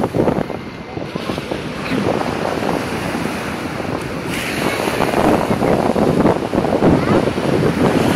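Small sea waves lapping and splashing close around the microphone, with wind buffeting it.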